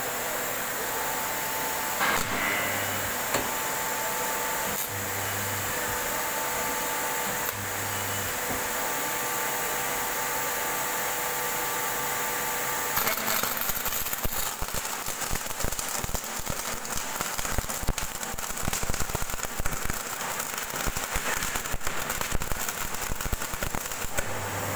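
Flash butt welder humming steadily, with a few clicks. About halfway through, the flashing stage begins: a fast, irregular crackling of arcing between the two steel ends of a tractor lower link, lasting about ten seconds.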